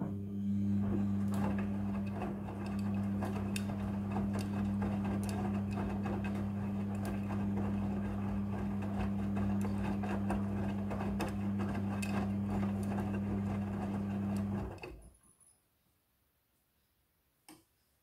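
Front-loading washing machine's drum motor running with a steady low hum as it turns the drum, the laundry tumbling inside with many soft knocks. It runs for about fifteen seconds and then stops: one tumbling stroke of the wash cycle followed by a pause. A faint single click comes near the end.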